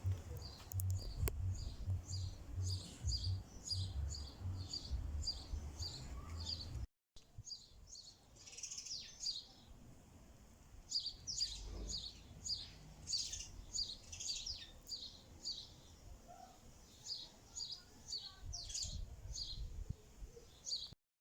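A small songbird chirping over and over in quick series of short, high notes, two to three a second, with a low rumble under the first part. The sound drops out for an instant about seven seconds in, and the chirping then continues in more varied phrases.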